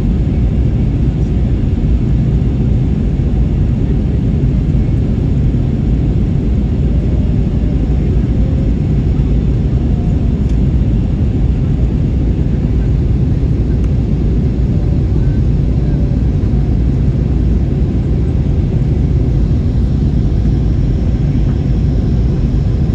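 Steady low rumble of an Airbus A321's engines and rushing air, heard inside the passenger cabin in flight.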